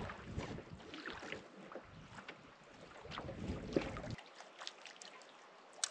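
Canoe on a windy lake: water lapping at the hull with scattered light knocks and clicks, and wind buffeting the microphone until about four seconds in. A sharp click comes near the end.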